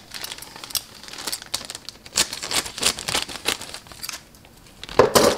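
Clear plastic bags of model-kit sprues crinkling and rustling as they are handled. There is a brief lull about four seconds in, then a louder rustle near the end.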